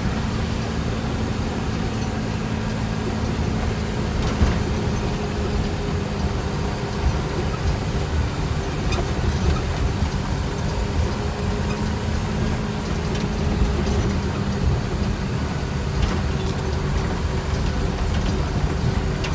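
Mercedes-Benz 1620 truck's diesel engine running steadily while driving over a dirt road, heard from inside the cab, with occasional knocks and rattles from the bumps.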